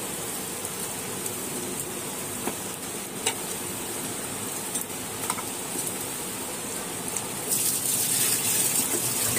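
Raw mutton pieces sizzling in hot oil with frying onions in a pressure cooker, with a few light clicks of a steel ladle against the pot as the meat is turned. The sizzle gets louder near the end.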